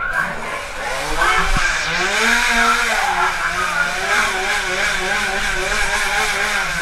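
A small engine running continuously, its pitch rising and falling as it revs up and down.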